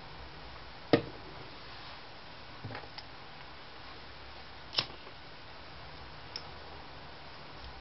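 A few sharp clicks and knocks at irregular intervals around a small homemade Stirling engine and its tin-can base, the loudest about a second in and another near five seconds, over a steady faint hiss.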